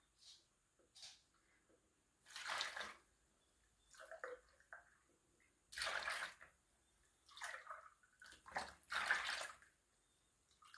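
Milk pouring from a plastic gallon jug into a plastic measuring cup and splashing as the cupful is tipped into a plastic mixing bowl: faint, in about five short pours of a second or less each.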